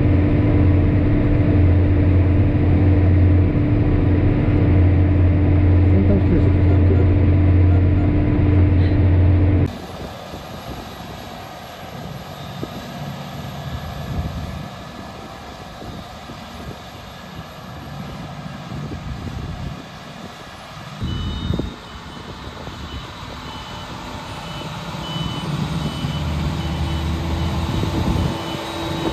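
Steady low engine drone heard inside a tractor cab, cutting off abruptly about ten seconds in to quieter, rougher machinery noise. In the last third a reversing beeper sounds over and over as farm machinery works in the field.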